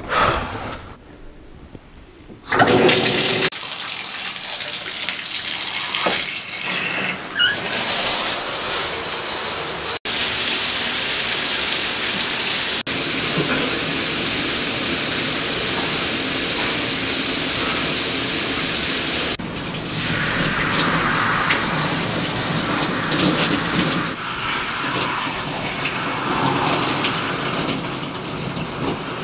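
Shower running: a steady hiss of spraying water that starts about two and a half seconds in, its sound changing about two-thirds of the way through.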